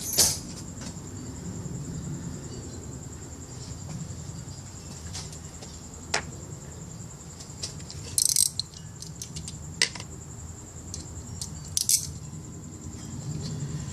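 A few scattered metallic clinks and rattles of hand tools being handled, such as sockets and wrenches, the loudest near the end, over a low steady background rumble and a faint constant high-pitched whine.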